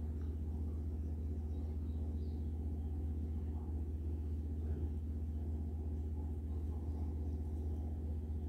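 Steady low background hum and rumble that does not change.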